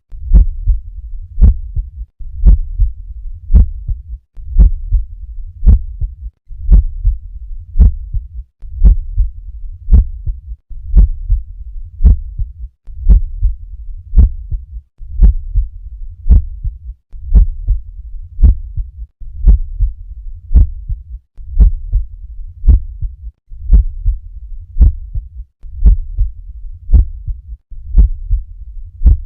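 Normal heart sounds recorded at the cardiac apex through a stethoscope: a steady, regular lub-dub of the first and second heart sounds repeating beat after beat, over a faint low rumble.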